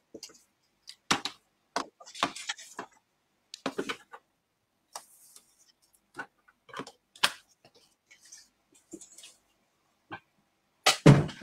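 Clicks and taps of a paper trimmer and cardstock being handled while a thin strip is trimmed, including a short scrape of the cutting blade. A heavier thump comes near the end.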